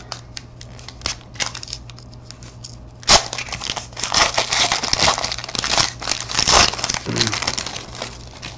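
Foil wrapper of a 2013 Panini Certified football card pack being torn open and crinkled by hand: a few light rustles at first, then a loud spell of crinkling and tearing from about three seconds in that dies away near the end, over a steady low hum.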